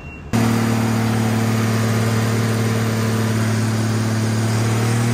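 Case 1455 tractor's diesel engine running at a steady speed, heard close up at the open engine bay. It cuts in abruptly a third of a second in. The engine has been losing power at full revs, which the crew put down to an air or fuel problem.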